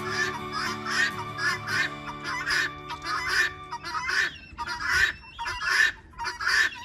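Poultry giving harsh, honking calls over and over, about one to two a second, over background music that stops about four seconds in.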